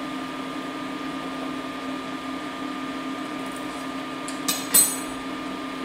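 Steady whirring hum with a constant tone from the cooling fan of a portable induction burner heating a simmering pan of sauce. About four and a half seconds in come two short clinks, the second briefly ringing.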